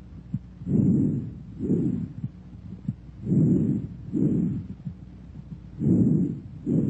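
Bronchovesicular breath sounds heard through a stethoscope: three breaths, each a soft rushing inspiration and expiration of about equal length separated by a short silent gap.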